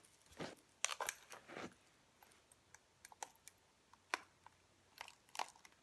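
A hairbrush being pulled through hair: faint, irregular swishing strokes and short clicks.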